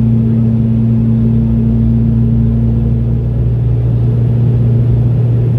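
Steady cabin drone of a Boeing 717 in flight: its rear-mounted Rolls-Royce BR715 turbofan engines and the airflow make an even low hum with a second tone above it, unchanging throughout.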